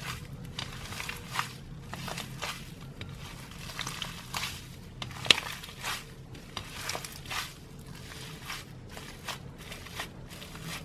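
Slime being squeezed, stretched and poked by hand, giving irregular wet clicks, crackles and small pops, with one sharper pop about five seconds in. A faint steady low hum runs underneath.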